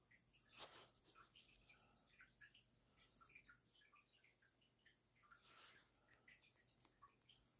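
Near silence: faint room tone with a low steady hum and scattered soft ticks.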